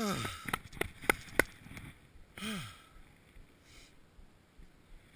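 Two short voiced sighs from a person, each falling in pitch, about two and a half seconds apart, with a few sharp clicks in between.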